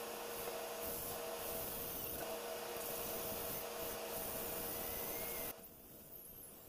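Corded drill running a hole saw steadily through a wall panel, with a constant motor hum under the cutting noise. It cuts off about five and a half seconds in, leaving a much fainter sound.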